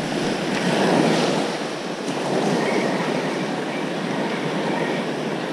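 Penn spinning reel cranked steadily right beside the microphone, its gears turning as line is retrieved with a fish on. Surf washes in the background.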